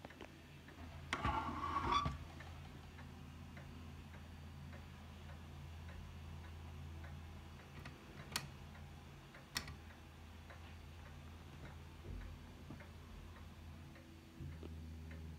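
Steady faint ticking under a low hum. A short scrape with a squeak sounds about a second in. Two sharp clicks come about eight and nine and a half seconds in, as a hand works the brass ship's wheel on the steampunk lamp.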